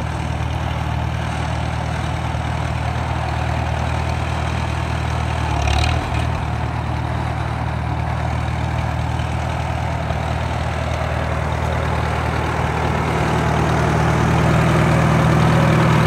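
1941 Farmall H tractor's four-cylinder gasoline engine idling steadily, with a brief bump about six seconds in. It grows louder near the end.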